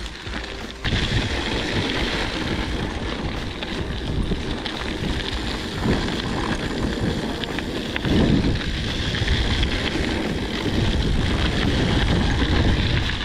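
1993 Mongoose Amplifier full-suspension mountain bike ridden over a trail: tyre rumble and rattling of the bike over rough ground, with wind buffeting the microphone. The noise rises about a second in, and there is a stronger jolt about eight seconds in.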